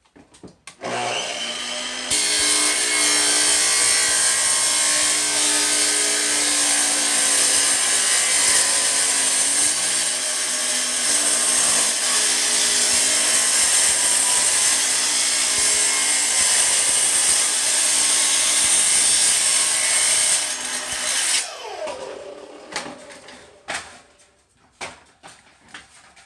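Sliding miter saw with a diamond wheel starting up and cutting through a stack of corrugated galvanized steel sheets: loud, steady grinding of the wheel through the metal for about twenty seconds. Near the end the motor is switched off and winds down with a falling whine, followed by the clatter of the thin metal sheets being handled.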